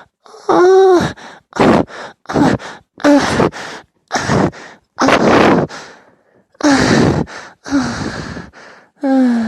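A man moaning and sighing in a series of about ten short, breathy exhalations with brief gaps between them. Several are voiced moans whose pitch falls away.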